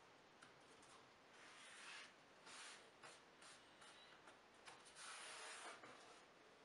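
Faint scraping and rubbing of thin wooden strips being slid and pressed into place by hand on a plywood board, in several short strokes, the longest just under a second about five seconds in.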